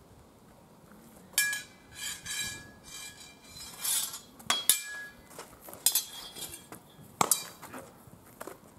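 Steel training swords and steel bucklers clashing in sword-and-buckler sparring: several flurries of sharp metallic clangs, some with a brief ring.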